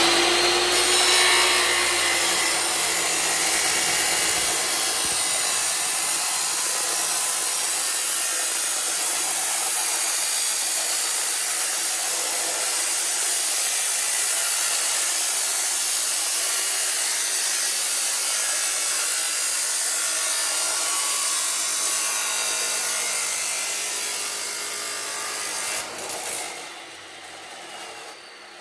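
Bauer abrasive metal chop saw's cutoff wheel grinding through thin-wall 4-inch stainless steel pipe in one long, steady, loud cut. About 26 seconds in the cut ends, the noise drops off sharply, and the motor winds down.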